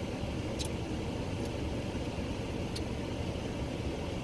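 Steady low rumble of an idling car heard from inside the cabin, with a few faint light clicks.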